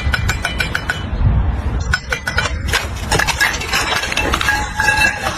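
A quick run of metallic clinks and taps with short ringing tones, then more scattered clinks over a low rumble.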